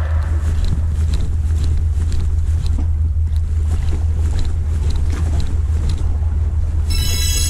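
A steady low rumble with a noisy wash of wind and sea above it. Near the end a cluster of steady electronic tones comes in, like music or an added sound effect.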